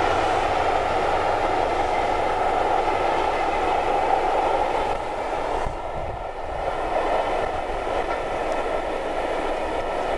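Steam locomotive 34067 Tangmere, a three-cylinder Bulleid Pacific, working hard at the head of its train of coaches, with the rush of its exhaust and the running of the train on the rails heard together. The sound is continuous and grows slightly fainter about halfway through as the train moves away.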